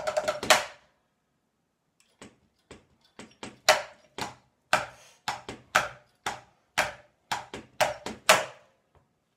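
Drumsticks on a practice-pad kit: a quick roll closes on an accented stroke just after the start. After a pause of about a second and a half, separate strokes follow, the loudest about twice a second with quieter strokes between them, ending near the close.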